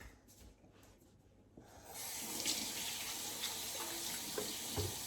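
Kitchen tap turned on about two seconds in, water running steadily into the sink, with a few short knocks.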